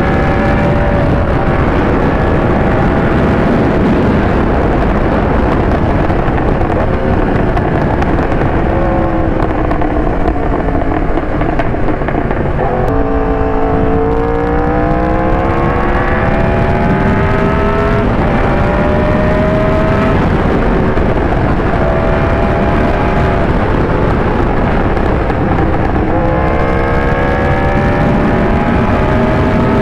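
Yamaha R1 inline-four engine under way: its note sinks as the bike slows, then about halfway through it climbs through several upshifts, each rise in pitch cut by a short dip at the shift. A steady rushing noise runs underneath.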